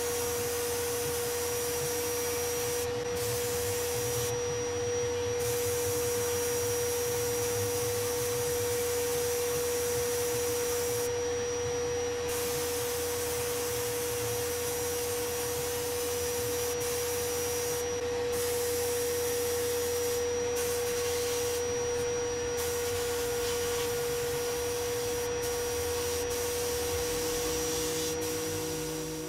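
Sandblasting cabinet in use: the air-fed blast gun hisses as grit strips bare metal parts, over a steady whine from the cabinet's dust-extraction vacuum. The blast hiss cuts out briefly several times as the trigger is let off.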